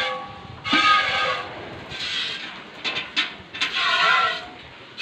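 Water buffalo being milked by hand into an empty metal pail: each squirt of milk hits the bare metal with a ringing hiss, about every second and a half. A few short knocks come near the middle.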